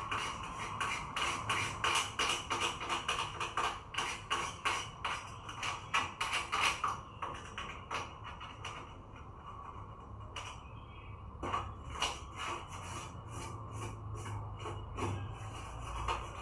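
Quick light clicks and taps, several a second for about the first seven seconds, then fewer and further apart.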